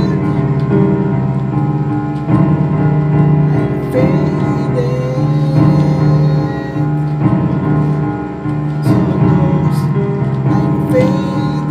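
Music: sustained chords under a melody line that slides between notes.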